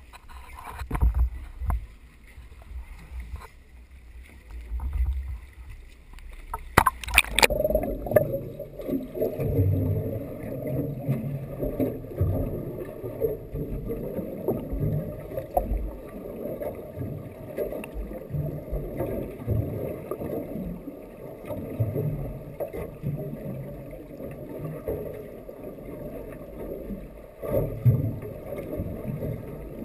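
Water against a waterproof action-camera housing: knocking and sloshing while it bobs at the surface, a splash about seven seconds in as it goes under, then a muffled, uneven rush of moving water heard from underwater.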